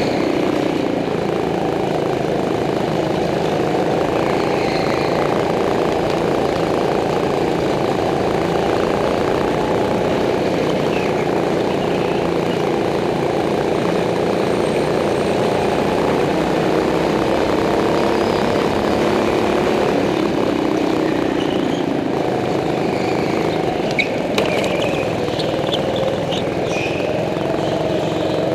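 Go-kart engine running hard, its pitch rising and falling gently as the throttle comes on and off through the corners. There are a few sharp knocks near the end.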